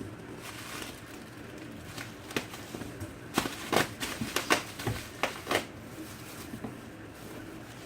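A quick run of short sharp knocks and taps, about a dozen over three seconds, against quiet room noise.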